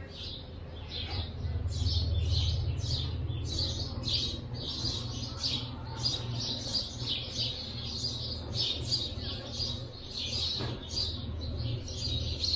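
Small birds chirping over and over, several short chirps a second, with a low rumble underneath.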